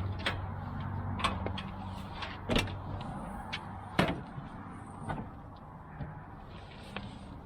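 Hardware being handled: about five sharp clicks and knocks spread across several seconds, over a low hum that fades out in the first three seconds.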